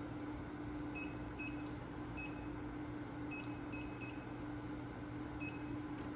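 Short, high electronic beeps at irregular intervals, about seven of them, over a steady low hum, with two sharp clicks.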